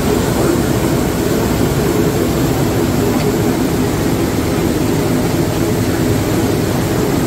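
A cruise boat's engine running steadily under way, mixed with the rushing of its propeller wake churning behind the stern.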